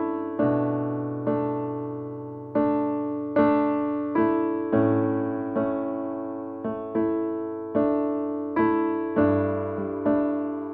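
Background music: slow solo piano, a note or chord struck about once a second and left to fade.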